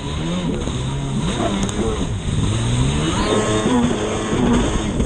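Stand-up racing jet ski engine revving, its pitch climbing and dropping again and again as the ski crosses rough, choppy water, over a steady hiss of spray and wind.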